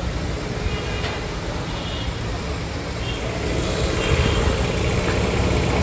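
Vehicle engine and street noise: a steady low rumble that gets louder about four seconds in.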